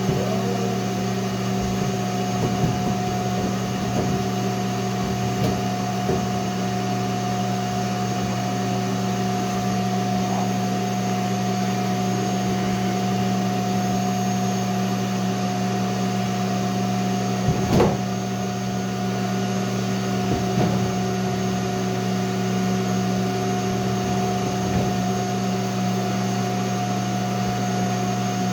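A steady electric motor drone with an even hum, holding the same pitch throughout, with a few light knocks, the loudest about two-thirds of the way through.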